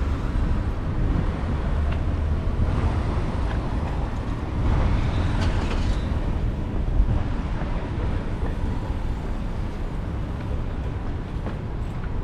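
Steady low rumble of vehicle traffic on a city street.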